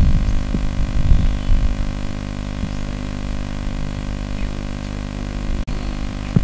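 Steady electrical hum and buzz, with low rumbling bumps during the first two seconds.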